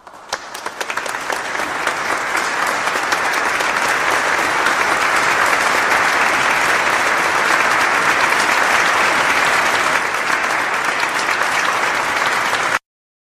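Crowd applause, a dense patter of many hands clapping that swells over the first couple of seconds, holds steady and cuts off abruptly near the end.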